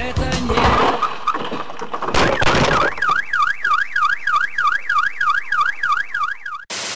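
Electronic car-alarm siren wailing rapidly up and down, about three sweeps a second, starting about three seconds in. A short loud burst of noise cuts it off near the end.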